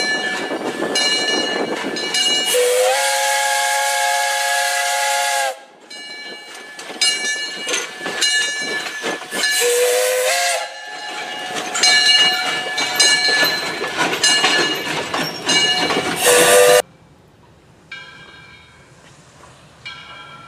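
Saddle-tank steam locomotive No. 126 ringing its bell about twice a second, and blowing its steam whistle three times over hissing steam: a long blast of about three seconds, a short one near the middle and a brief toot. After a sudden cut a bell rings more faintly.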